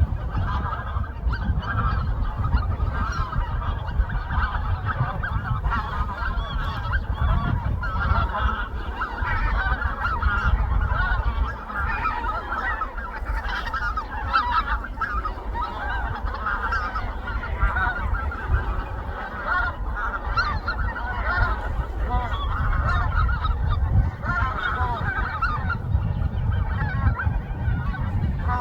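A large flock of wild geese honking continuously, with many calls overlapping; the narrator takes them for greater white-fronted geese. A steady low rumble runs underneath.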